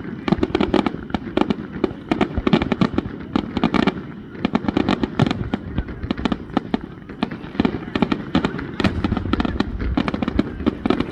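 Aerial fireworks display in a dense, continuous barrage: many sharp bangs and crackles a second, with a low rumble under them.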